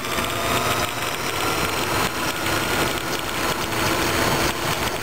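Radio-controlled model trucks running on an asphalt track: a steady mechanical running noise with faint, even whining tones through it.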